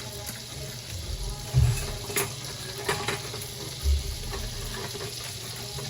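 Butter and oil sizzling steadily in a pot on the stove, with a few sharp clicks and a couple of low bumps.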